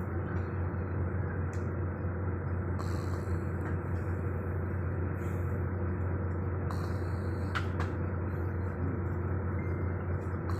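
Soft snoring breaths from a sleeper, a breathy hiss every couple of seconds, over a steady low drone like a vehicle running.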